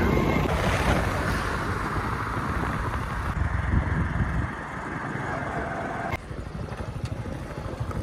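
Motorcycle being ridden along a road: a low engine and road rumble under wind buffeting the microphone. The sound drops and changes abruptly about six seconds in.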